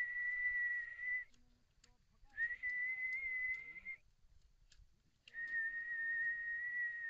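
A man whistling with his lips: three long, level notes of a second and a half or more each, with short gaps between. He is whistling to call up the wind.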